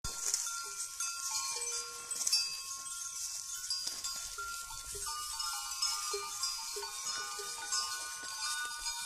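Bells on a herd of goats clinking and ringing as the goats move and graze, several bell tones overlapping.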